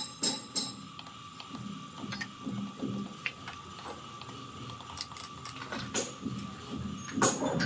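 Small electric motor and plastic gearbox of a remote-control toy construction vehicle whirring with a steady thin whine, with scattered clicks and knocks of plastic parts, the loudest at the start and near the end.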